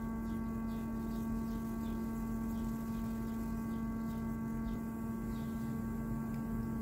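Loudspeaker under a cardboard Chladni plate, driven by a function generator with a 225 Hz sine wave: a steady hum at one pitch, with fainter higher tones above it. The plate is vibrating at a resonance that gathers the salt into a pattern.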